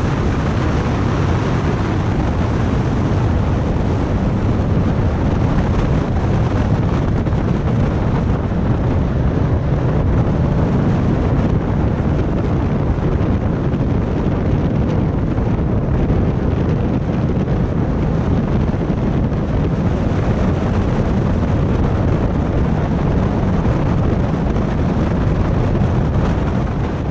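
Steady, loud wind rush on a helmet-mounted camera's microphone while a motorcycle is ridden at road speed, with the bike's engine running underneath.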